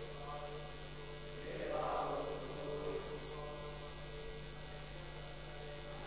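Steady electrical mains hum through the microphone and sound system. Faint voices sit under it and swell briefly about two seconds in.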